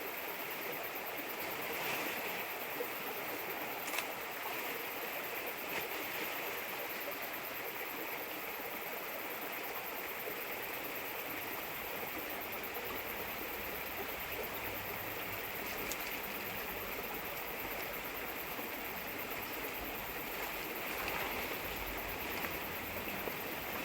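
Steady rushing of running water, with a couple of faint clicks.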